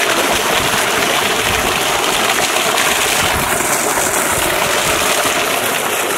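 A strong jet of water gushing steadily and splashing onto concrete steps and into the water below.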